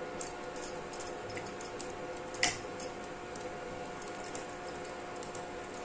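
Induction cooktop humming steadily under a steel pan, with a few light clicks of a spoon against the bowl in the first second and one sharper tap about two and a half seconds in.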